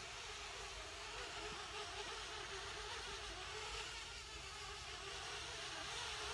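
Parrot Bebop 2 quadcopter drone's propellers buzzing faintly overhead as it descends on its automatic return-home landing; a steady hum whose pitch wavers slightly.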